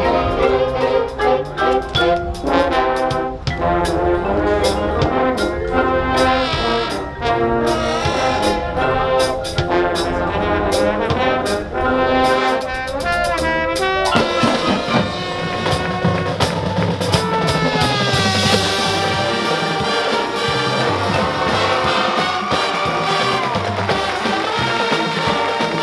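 Marching band playing a field show: brass with drums and mallet percussion. About 14 seconds in, the rapid percussion strikes thin out and the brass moves to long sustained chords.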